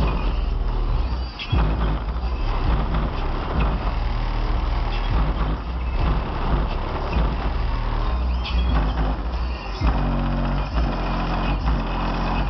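Car stereo bass from the trunk-mounted Pioneer subwoofers of a Buick Regal coupe, heard from outside the car: deep sustained bass notes dominate and the rest of the music is faint. The bass drops out briefly twice, about a second and a half in and again near ten seconds.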